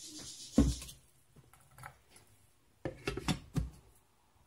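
Water pouring into a glass blender jar of soaked oats, stopping just under a second in with a knock. About three seconds in, a few knocks and clatter as the blender's plastic lid is fitted onto the jar.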